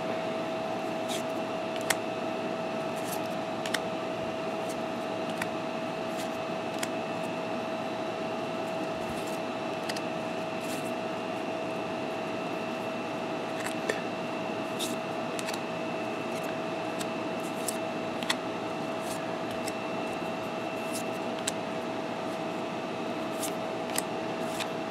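Trading cards being handled one at a time: short clicks and taps of cardstock as each card is flipped and laid on the pile, every second or two, over a steady hum with a high whine.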